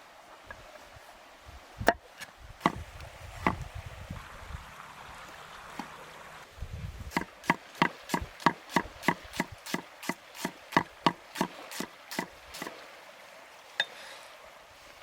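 A knife chopping against wood: three single chops, a pause, then a quick steady run of about three chops a second.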